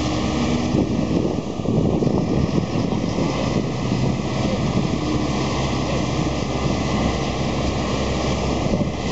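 The Queen Emma pontoon bridge's propeller engines running steadily as the floating bridge swings back into place across the channel.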